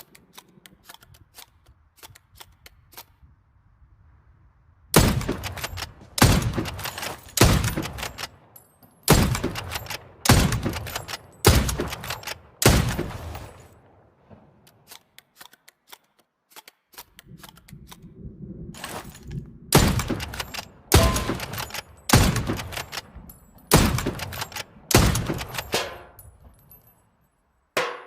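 Hunting rifle shots fired one after another, roughly one a second, each with a short decaying tail: a run of about seven, a pause of several seconds, then about six more. Faint clicks in the first few seconds.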